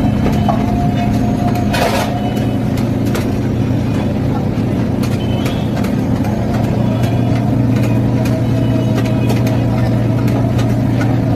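Long metal spatula scraping and clinking against a wide metal pan as chicken pieces are stirred, over a loud, steady low hum.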